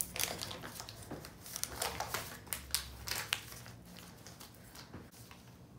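A paper butter wrapper crinkling as a stick of butter is unwrapped, a run of crisp rustles and small clicks that thins out after about three seconds.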